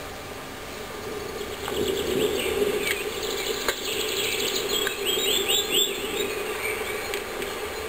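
Birds chirping and singing over a steady hiss and hum, with a few sharp clicks.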